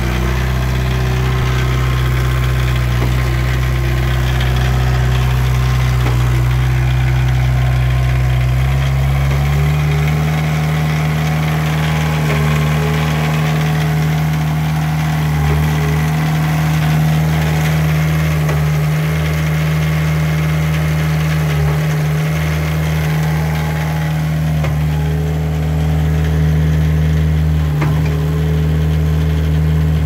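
Reinert P530 concrete pump's engine running steadily; its speed steps up a little about ten seconds in, then holds.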